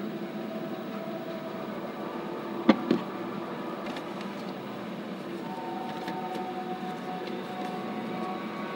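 Two sharp knocks close together on a wooden tabletop about three seconds in, with a few faint clicks of paper being handled later, over a steady room hum.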